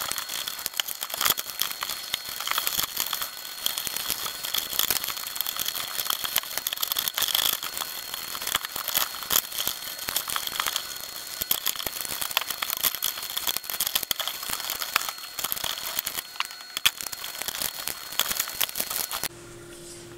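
Rustling and many small irregular clicks of wire bundles and plastic wire-management clips being handled and pulled inside a receiver chassis, with a faint steady high whine under it that stops near the end.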